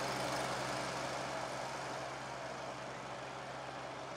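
Boat engine running steadily: a low, even hum under a steady rushing noise.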